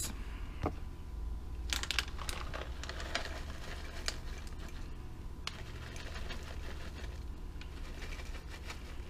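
Chopped almonds shaken from a plastic bag into small glass mason jars: the bag crinkles, with scattered light ticks and rustles as the nut pieces fall.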